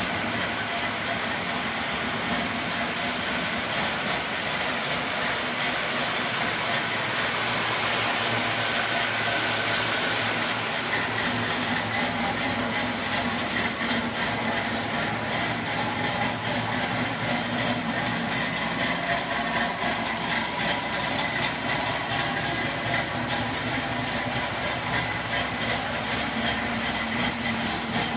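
Dodge Caravan engine running steadily at idle; its sound shifts slightly about ten seconds in, with less hiss and a steadier low hum after.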